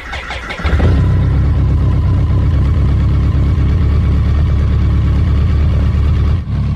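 BMW K100RS's inline-four engine being started: the starter cranks briefly, the engine catches about half a second in, and it then runs steadily.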